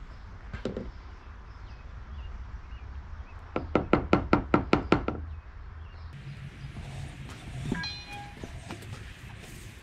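A quick run of about nine sharp knocks in a second and a half, a few seconds in, followed a little later by a short squeak.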